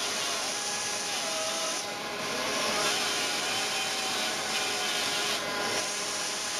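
Pneumatic right-angle sander with a small sanding disc spinning against bronze: a steady rasping hiss with a faint whine that wavers up and down in pitch.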